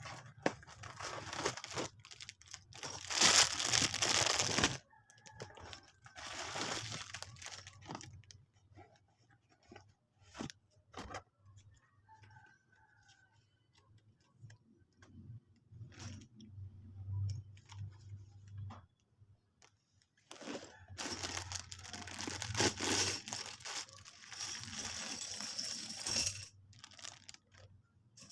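Lego packaging being torn open and crinkled: three long stretches of tearing and rustling, with scattered clicks and taps between them.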